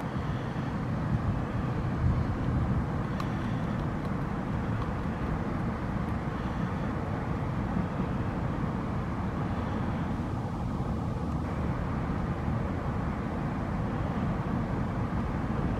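Steady low rumble of distant road traffic, with faint intermittent scraping from a beaver's teeth gnawing bark and cambium off a log.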